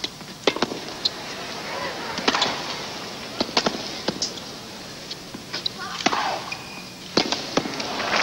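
Tennis ball being struck by racquets and bouncing on a hard court during a baseline rally: sharp pops about every second, some in quick pairs, with a short grunt on some of the strokes.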